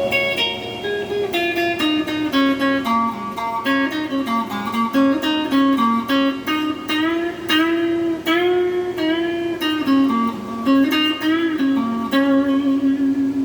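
Electric guitar played through an amplifier with its two pickups combined out of phase: a melodic line of plucked single notes with a few bends, ending on a held note. The tone is thin and nasal, which the player describes as somewhere between quack and honk.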